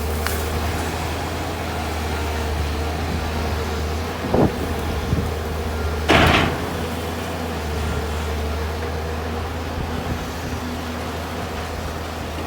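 Excavator's diesel engine running steadily, with two short, loud noises about four and six seconds in, the second the louder.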